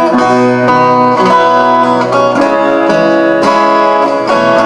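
Acoustic folk band playing an instrumental break on plucked strings, with a steady run of picked guitar notes and no singing.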